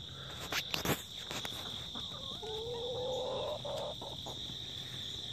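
A hen gives a drawn-out, wavering low call about halfway through, over a steady high trill of crickets; a few brief rustles sound in the first second.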